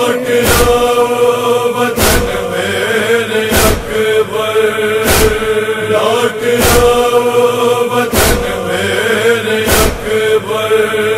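A chorus of male voices holds a chanted line between verses of a noha (Shia lament). A heavy thump lands about every second and a half, the beat of matam (chest-beating).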